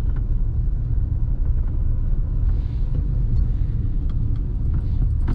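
Maruti Alto CNG running in third gear under light throttle, a steady low engine and road rumble with a few faint knocks in the second half. The knock is a gearbox knock that the owner hears only in third gear when the accelerator is pressed lightly.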